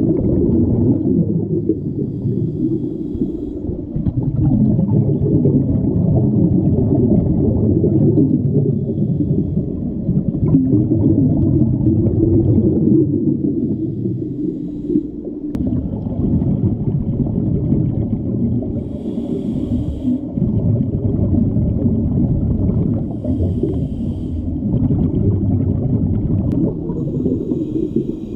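Muffled underwater sound picked up by an action camera in its dive housing: a steady low rumble of water and scuba bubbles, with two brief hisses a few seconds apart about two-thirds of the way through.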